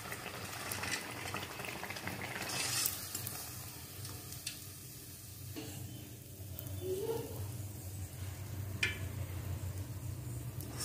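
Rice-and-urad-dal batter dumpling (vellai paniyaram) sizzling as it fries in hot oil in a steel kadai, with a few light clicks of a perforated steel skimmer against the pan as it is lifted out.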